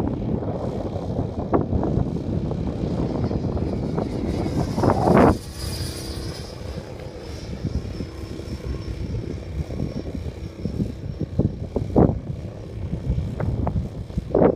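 Model airplane's motor whining high and steady under heavy gusts of wind buffeting the microphone; the wind eases a little about five seconds in, leaving the whine clearer.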